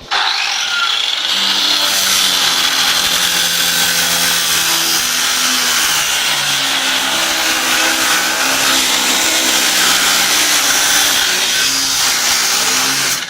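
A power tool cutting steadily, a continuous harsh whirr with a low hum that shifts between a few pitches as it works. It starts abruptly and stops abruptly.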